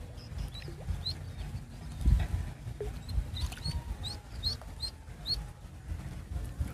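A duckling on a fishing line peeping in short rising chirps, with a quick run of them about halfway through. Under it is a low rumble with one thump about two seconds in.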